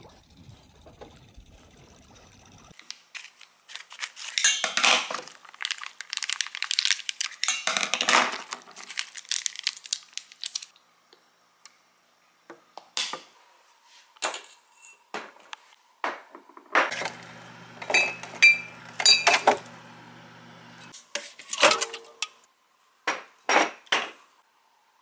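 Dishes, a metal bowl, cutlery and glassware clinking and clattering on a table, in irregular bursts of sharp knocks and clinks.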